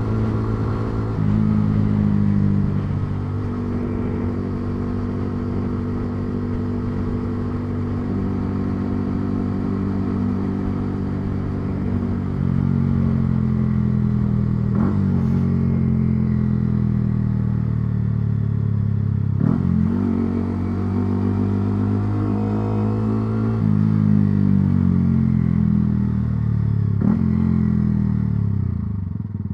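Yamaha R125's 125 cc single-cylinder four-stroke engine running under way, its pitch shifting in steps at several gear and throttle changes, with a few sharp clicks. The engine note falls away near the end.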